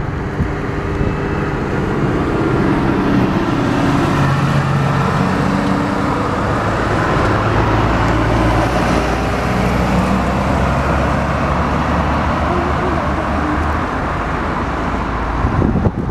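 Steady jet engine noise from a taxiing Boeing 757, a low hum that shifts in pitch over a broad rush, with a few bumps near the end.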